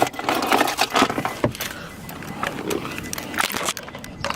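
Scattered clicks and knocks with rustling, as someone switches off a car and climbs out of the driver's seat.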